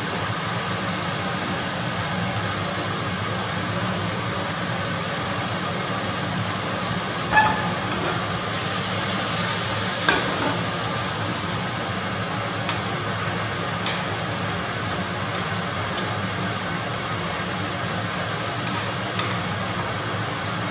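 Scallops searing in hot fat in a frying pan: a steady sizzle, with a few sharp clicks of a metal utensil against the pan as the scallops are moved.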